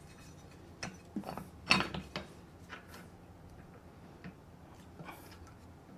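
Scattered metal clicks and knocks as a steel work rest is turned over and fitted onto a belt grinder's mount by hand, the loudest a little under two seconds in.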